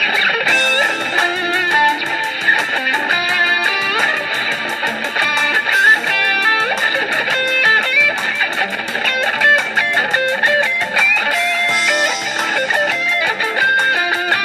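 Duesenberg semi-hollow electric guitar playing a clean, jazzy-blues lead solo in D minor over a backing track, with quick runs and bent notes.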